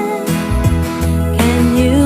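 Ringtone music playing: a lead melody that slides between notes over a steady repeating bass.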